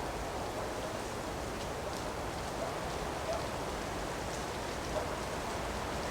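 Steady wind rushing through forest trees, with a few faint ticks scattered through it.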